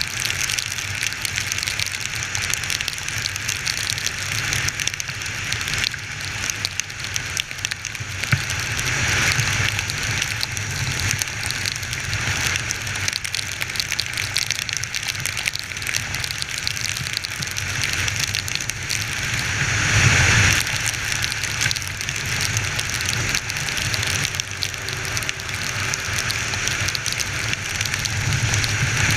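Heavy rain hissing steadily over the low, even drone of a Honda XR 250 Tornado's single-cylinder engine while riding. The noise swells briefly about twenty seconds in.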